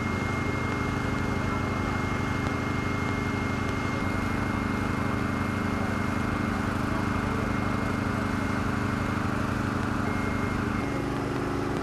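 Steady drone of fire-service diesel engines running at the fire ground, with a faint steady whine above it; the pitch of the drone shifts slightly near the end.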